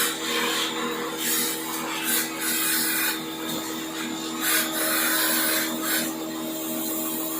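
Irregular rubbing or scrubbing noises over a steady hum.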